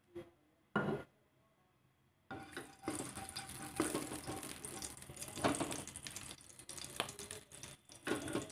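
Olive oil heating in a nonstick wok, sizzling, with a spatula scraping and stirring through it, starting a couple of seconds in after a brief knock.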